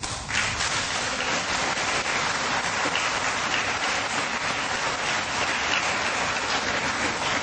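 Audience applauding, starting suddenly and keeping up a steady level.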